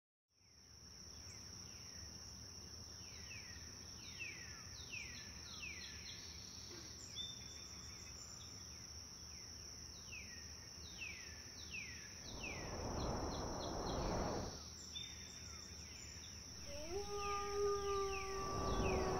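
Outdoor ambience: a steady high-pitched insect drone, with a bird repeating quick downward-sweeping calls. Twice a swell of rushing noise rises and falls, and held music notes come in near the end.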